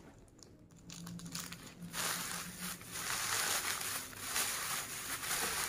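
Thin plastic carrier bag crinkling as it is scrunched and handled, starting about two seconds in and going on in quick, irregular crackles.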